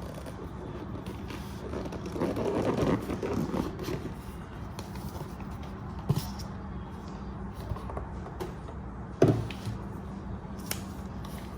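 Hands handling a laptop box and its packaging: a rustling scrape lasting about two seconds, starting about two seconds in, then two short knocks, the second louder, over a steady low hum.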